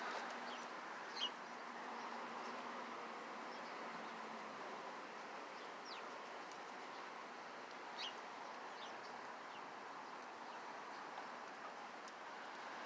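Steady outdoor background noise with a few short, high chirps of small birds, spaced several seconds apart.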